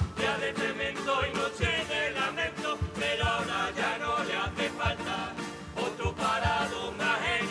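Carnival comparsa choir singing in harmony, backed by guitar and a drum keeping a steady beat.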